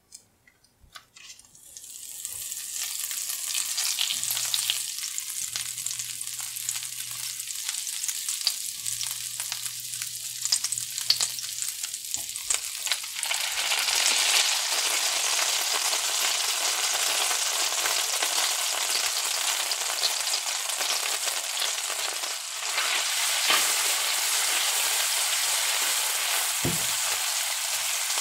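Butter melting and sizzling in a nonstick frying pan while a utensil stirs it. The crackle builds up over the first couple of seconds; about halfway through, minced garlic goes into the hot butter and the sizzle turns louder and fuller.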